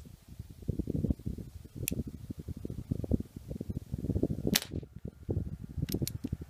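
Crosman E9A .22 CO2 pistol firing one sharp shot about four and a half seconds in, followed by two quick metallic clicks as it is handled again. Wind buffets the microphone throughout.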